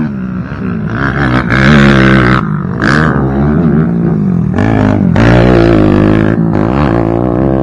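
Racing quad (ATV) engines revving hard on a dirt track, the pitch climbing and falling again and again as the riders throttle up, back off and shift.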